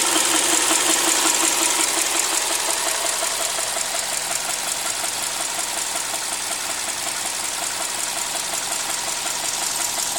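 Subaru EL15 flat-four engine running with a rapid, regular knock from a failing timing-belt roller.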